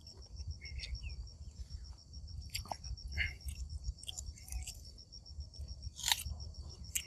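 Insects trilling steadily in a fast pulsing high chirr over a low rumble of wind, with a few short crisp crunches and clicks as fresh jujube fruits are bitten and chewed.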